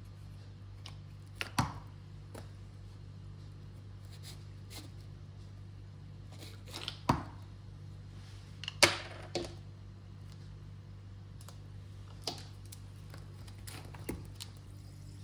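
A few sharp knocks and clicks from objects being handled, scattered and irregular, the loudest about nine seconds in, over a steady low electrical hum.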